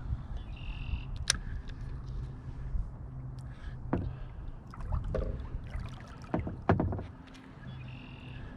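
Knocks and clunks on a fishing kayak, several sharp ones with the loudest pair near the end, over a steady low rumble of water against the hull.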